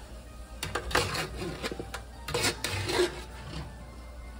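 Metal tongs scraping and clicking against a sheet pan while hand-cut oven fries are turned over, in a series of short, irregular scrapes.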